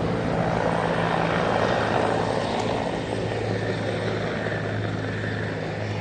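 Helicopter flying overhead: a steady drone of rotor and engine with a low hum, easing slightly in the second half.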